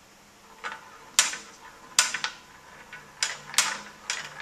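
Marbles running down an antique marble track of hollowed-out carved wooden chutes joined with tin at the bends, knocking against the track in a series of sharp clacks at uneven intervals.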